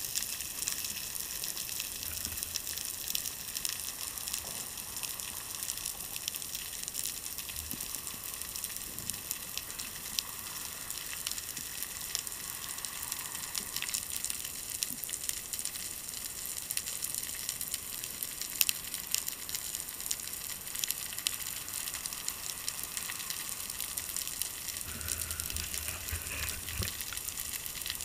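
Underwater reef ambience: the steady crackle of snapping shrimp, a dense hiss of tiny clicks.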